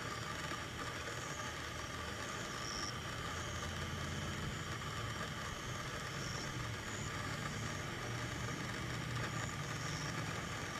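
Steady outdoor night background: a constant low hum, like distant machinery or traffic, with faint short high chirps every second or two. No thunder is heard.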